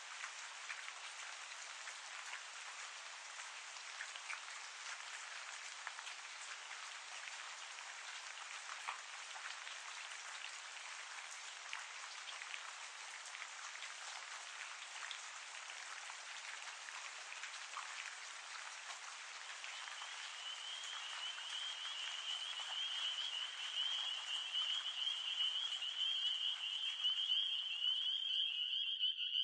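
Steady rain falling, an even hiss dotted with small drop clicks. About two-thirds of the way in, a chorus of frogs calling fades in as a high, steady trill and grows louder toward the end.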